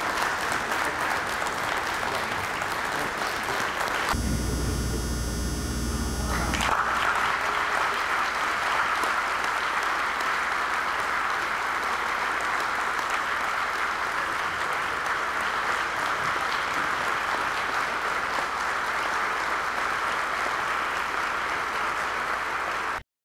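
Crowd applauding steadily in a gym, with hand claps blending into an even patter. About four seconds in, the clapping is replaced for around two seconds by a different low rumbling sound, then resumes and cuts off suddenly at the end.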